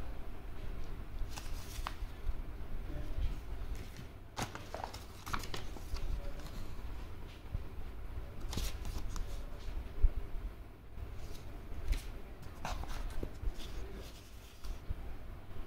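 Paper sachets and a printed card rustling and crinkling as they are handled, in short scattered bursts over a steady low rumble.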